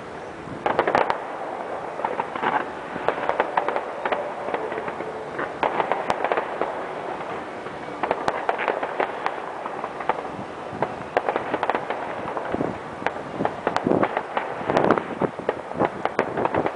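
Fireworks going off: a dense, uneven run of sharp pops and crackles from shells and comets, with louder clusters of reports about a second in, around six seconds, and through the last third.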